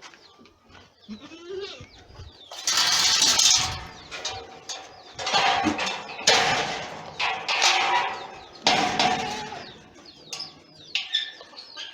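Boer goats bleating, about five loud, harsh calls in a row after a quieter first couple of seconds.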